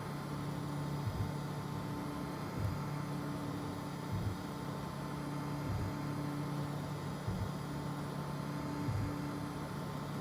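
FDM 3D printer at work: its stepper motors whine in steady tones that break off and change every second or so as the print head changes direction, over a constant fan hum and hiss.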